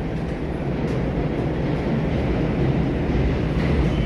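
Subway train on the elevated line rumbling, growing steadily louder as it approaches.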